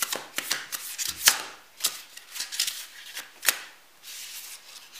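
A deck of tarot cards being shuffled by hand: a quick, uneven run of card snaps and slides, dying down to a soft rustle near the end.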